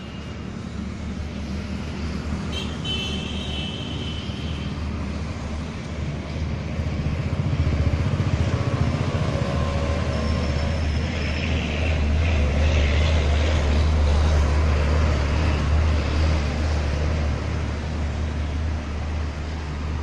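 Outdoor fountain starting up: jets of water rushing and splashing, growing louder about eight seconds in, over a steady low rumble.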